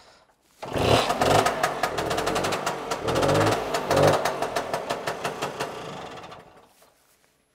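Vintage scooter engine kick-started and catching about half a second in. It runs with a rapid popping beat, swells twice, then fades and stops near the end.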